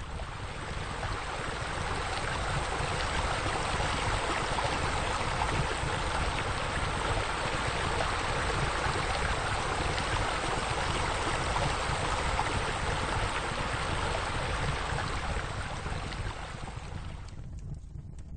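Running water from a fountain water feature, a steady splashing rush that fades in over the first few seconds and fades out near the end.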